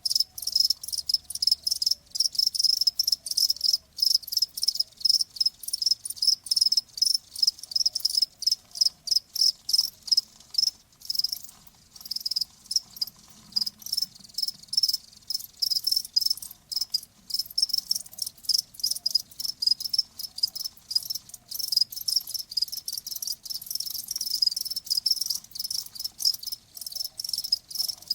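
Crickets chirping continuously in rapid, closely spaced high-pitched pulses.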